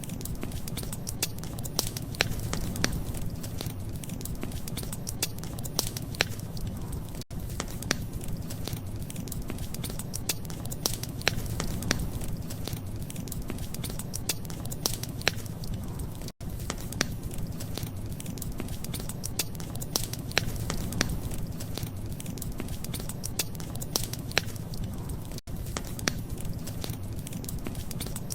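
Wood fire burning in a fireplace: frequent sharp crackles and pops over a steady low rumble. Brief dropouts come about every nine seconds.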